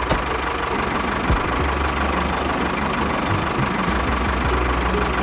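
A motor running steadily: a continuous mechanical rattle over a constant low hum.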